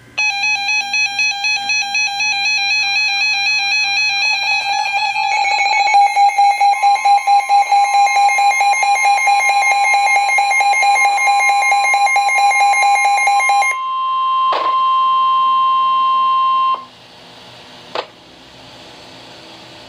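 Weather radio alert alarms: rapid pulsing electronic beeps, joined by a second, higher beeping about five seconds in, both stopping about 14 seconds in. Over them, a steady single-pitched warning alarm tone starts about 7 seconds in, lasts about ten seconds and cuts off abruptly. After that comes a faint hiss with a few sharp clicks.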